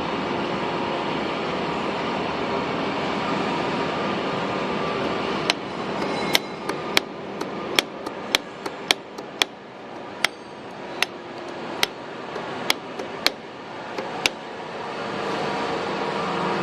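Steady machinery noise that eases off about five seconds in, giving way to a string of about fifteen sharp metallic clanks at uneven intervals, like metal being struck with a hammer; the steady machine noise comes back up near the end.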